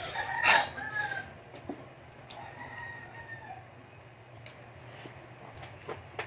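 A rooster crowing faintly in the background, two drawn-out calls, the first about half a second in and the second around three seconds in. A brief louder noise comes at the start.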